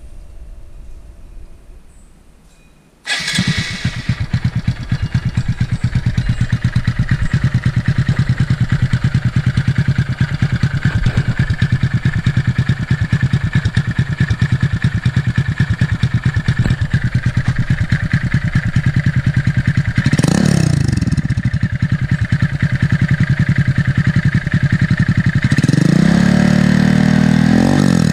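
Honda Grom's single-cylinder four-stroke engine, fitted with a short aftermarket exhaust, starts suddenly about three seconds in and settles into a fast, even idle. The throttle is blipped once about twenty seconds in and held open for a couple of seconds near the end before it drops back.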